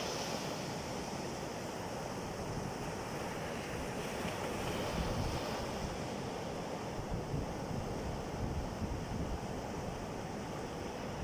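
Sea waves washing in, with wind buffeting the microphone in uneven gusts.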